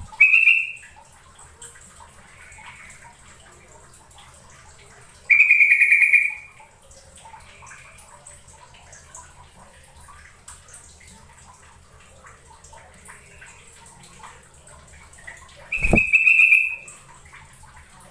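Yellow-vented bulbul (trucukan) calling: three loud, bubbly bursts of about a second each, the first near the start, one about five seconds in and one near the end. A dull thump comes just before the last burst.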